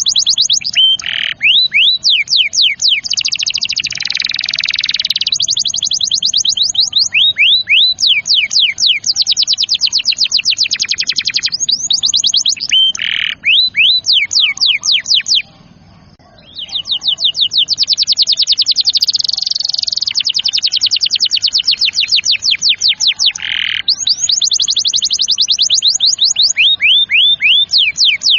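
Domestic canary singing long, rapid trills of repeated chirping notes. The song breaks off briefly about halfway.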